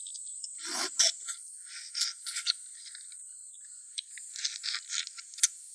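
Wet sucking and cracking sounds of someone eating spicy boiled crayfish by hand, sucking the shells, in short irregular clicks. Behind them runs a steady high drone of insects.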